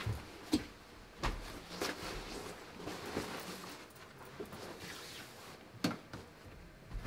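Clothing rustling as a jacket is taken off and hung on a coat hook, with about six short soft knocks and clicks spread through it.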